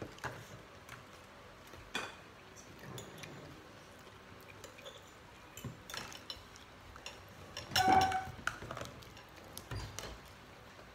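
Scattered clinks and knocks of plates, bowls and a spoon on a dining table, with one louder, briefly ringing clink about eight seconds in.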